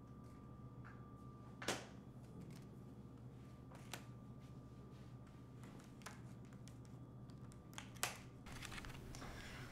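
Faint kitchen room tone broken by a few sharp clicks and knocks as a refrigerator and a plastic food container are handled at a countertop. The loudest knock comes about a second and a half in, and there are two quick clicks near the end.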